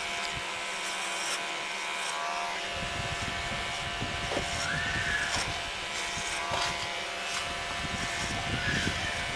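Cordless hair clipper running with a steady buzz, cutting hair over a comb; the sound turns rougher and crackly from about three seconds in as the blade works through the hair.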